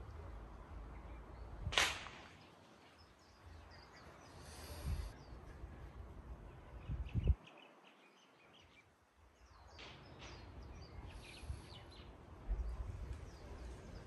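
Quiet outdoor background: a low rumble of wind on the microphone that comes and goes, a sharp brief swish about two seconds in, a dull knock about seven seconds in, and scattered faint short high chirps near the end.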